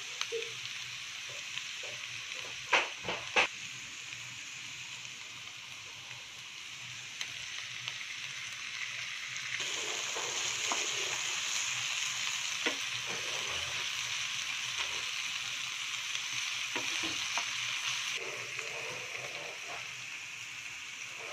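Chopped onions and chilies frying in oil in a nonstick pan, a steady sizzle stirred with a wooden spoon. There are a few sharp knocks about three seconds in. The sizzle grows louder about halfway through and eases off again near the end.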